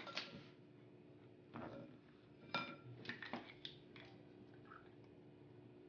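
Faint clinks and scrapes of a plastic spatula and measuring spoon against a glass mixing bowl and a glass measuring cup, a few separate knocks in the first four seconds, one with a short ringing tone about two and a half seconds in.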